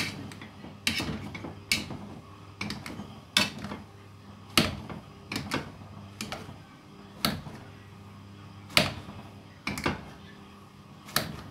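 A kitchen utensil knocking sharply against a pot or bowl while boiled potatoes are mashed, about a dozen irregular knocks roughly a second apart, over a steady low hum.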